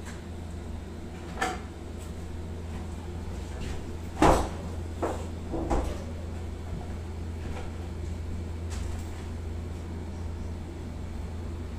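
A few short knocks and thuds from pork being handled on a stainless-steel table, the loudest about four seconds in, with smaller ones just after. Under them runs a steady low hum.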